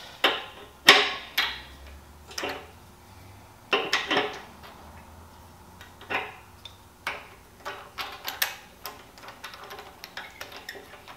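Irregular metallic clinks and taps of an adjustable wrench and the regulator's metal fittings as the regulator valve is unscrewed from a Craftsman air compressor's manifold; the loudest clink comes about a second in.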